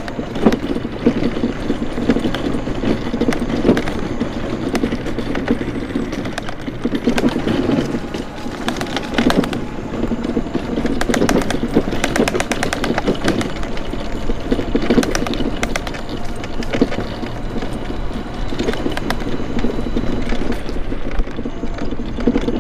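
A scooter riding along a concrete path: a steady rumble of its wheels and running gear, with irregular bursts of rattling and clatter as it goes over bumps and slab joints.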